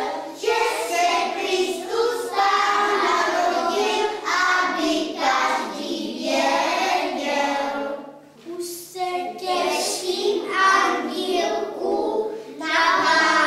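A group of young children singing together in chorus, with a brief break about eight seconds in.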